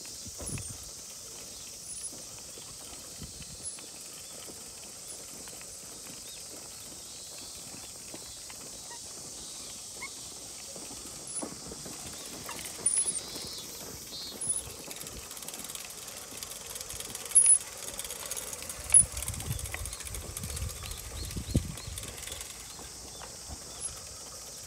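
Hand-pushed seeder rolling along a tilled row, with footsteps in soft soil and scattered knocks and clicks, several louder ones in the second half.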